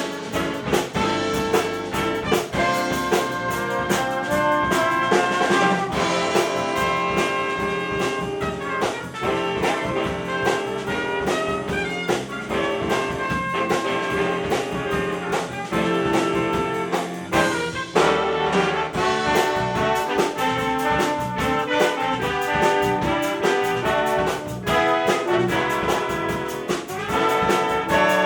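Jazz big band playing live, with a brass section of trumpets and trombones over drums keeping a steady beat.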